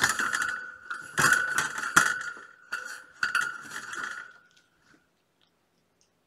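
Cat toys jingling and rattling in several quick bursts as kittens bat at them, stopping about five seconds in.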